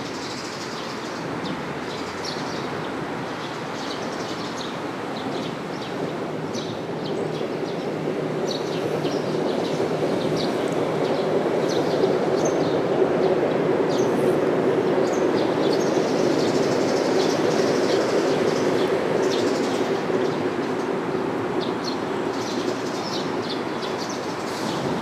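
A steady rumbling noise that swells through the middle and eases off near the end, with small birds chirping high above it throughout.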